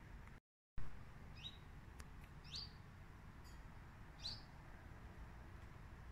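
Common chiffchaff giving its short rising 'hweet' call three times, about a second and a half apart. The call is much like the alarm call of a common redstart. Near the start the sound cuts out briefly and then comes back with a sharp click.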